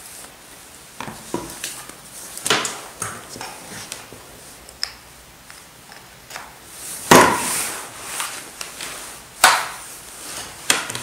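Scattered clicks and knocks of parts being handled and set down. Two louder knocks come about seven and nine and a half seconds in.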